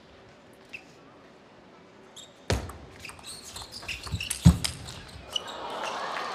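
A table tennis rally: after a quiet start, a run of quick sharp clicks of the ball off bats and table, with a couple of heavy thuds among them. Crowd applause starts to rise near the end as the point is won.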